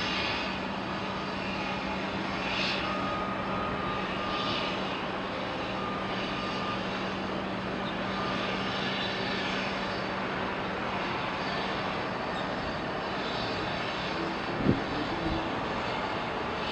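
Steady outdoor rumble and hiss, with a low steady hum that stops about three quarters of the way through. A single sharp knock near the end.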